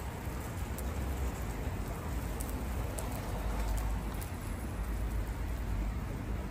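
Steady outdoor noise: a hiss over a low, fluctuating rumble, with a few faint ticks.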